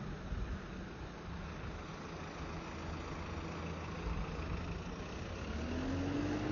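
Motor vehicle engine running steadily, then its pitch rises near the end as it speeds up and gets louder.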